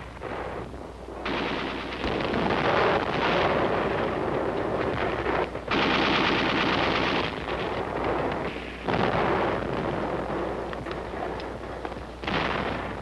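Machine-gun fire in long bursts broken by short pauses, over a steady low hum from the old film soundtrack.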